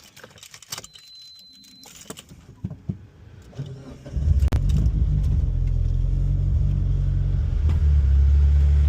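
Keys jangling and a few clicks, then about four seconds in a Mitsubishi Lancer Evolution VII's turbocharged 4G63 four-cylinder engine starts and settles into a loud, steady idle.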